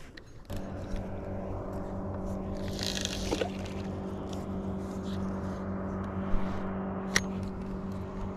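Bow-mounted electric trolling motor coming on about half a second in and running with a steady hum. A few sharp clicks sound over it.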